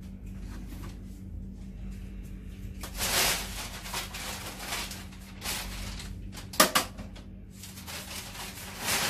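Handling noises: several bursts of rustling and clatter, with one sharp knock about two-thirds of the way through, over a low steady hum.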